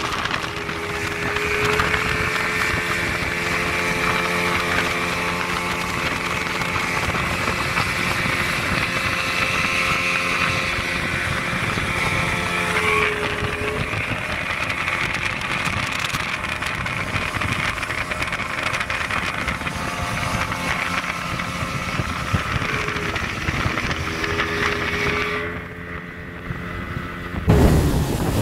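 Motorboat engine running steadily at speed over rushing wind and water, its pitch shifting a few times. Near the end it drops back for a couple of seconds, then a loud low buffet of wind hits the microphone.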